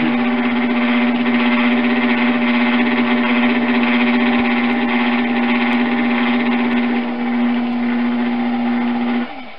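Electric potter's wheel motor running with a steady hum while clay is being opened on the wheel head. Near the end the hum dips in pitch and cuts out.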